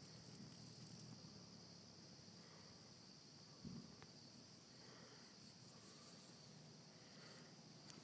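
Faint, steady high-pitched trilling of night insects, with a brief low bump about halfway through.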